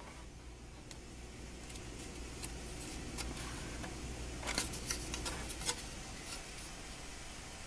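Hard plastic model-kit body parts clicking and tapping as they are handled and turned over, with a quick cluster of sharp clicks a little past the middle.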